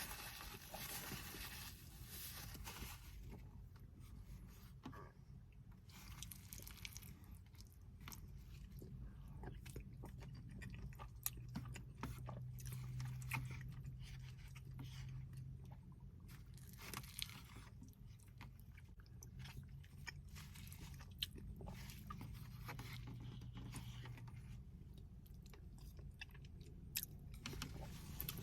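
A person chewing and biting food close to the microphone, with scattered sharp clicks over a steady low hum.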